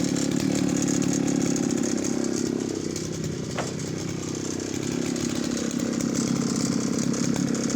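Late-1960s Jonsered 751 chainsaw's two-stroke engine running steadily, a little quieter for a couple of seconds in the middle.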